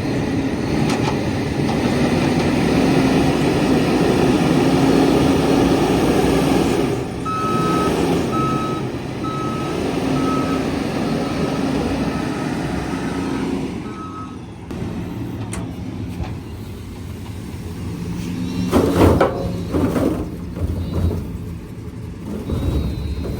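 JCB 437 wheel loader's diesel engine working hard, with a reversing alarm beeping a little over once a second for several seconds midway. The engine noise eases off about two-thirds through, and a short loud burst of noise comes near the end.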